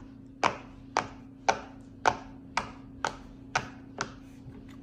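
Silicone pop-it fidget toy having its bubbles pressed one after another: about eight sharp pops, roughly two a second.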